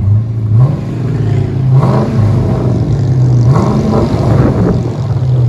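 2011 Dodge Charger R/T's 5.7-litre HEMI V8 exhaust, through a factory X-pipe into Flowmaster Flow FX mufflers with the resonators deleted. The engine is held just off idle and revved up and back down about three times, the higher blips coming about two and three and a half seconds in.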